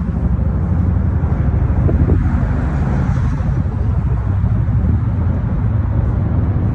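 Loud, steady low rumble of wind buffeting the phone's microphone, over road traffic noise.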